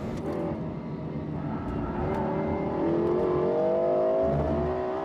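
Lexus LFA's 4.8-litre V10 accelerating, its pitch rising steadily for several seconds, then briefly dropping near the end.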